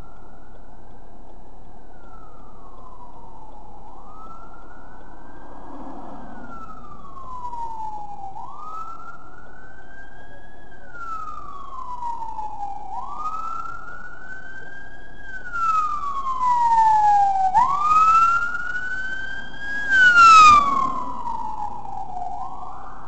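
Emergency vehicle siren in a slow wail, each cycle rising quickly and then falling, about every four and a half seconds, growing louder as it approaches. Near the end its sweeps are at their loudest, with short bursts of loud noise.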